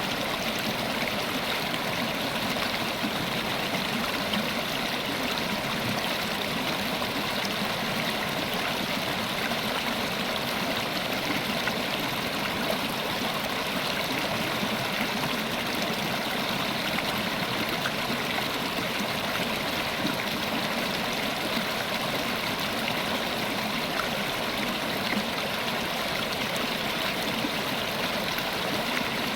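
River water flowing steadily over rocks, a continuous even rush with fine splashing and gurgling.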